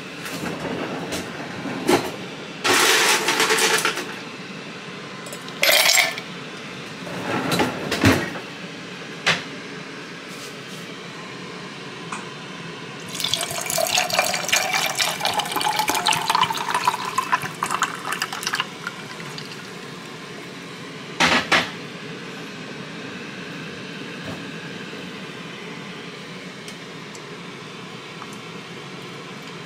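Ice cubes clattering into a stemless glass in three short bursts. Then, from about 13 seconds in, chai tea is poured over the ice for several seconds with a rising pitch as the glass fills, followed by one more short knock.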